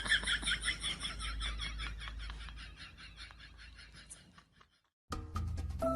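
An animal's rapid, evenly repeated chirping, several short high calls a second, fading out over about four seconds. Music starts near the end.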